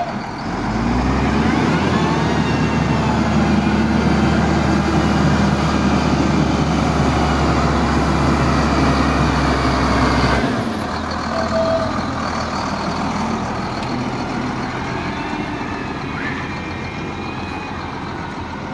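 Heavy diesel engine of a truck or road-construction machine running, with a steady low drone that cuts off about ten seconds in, leaving quieter engine and traffic noise.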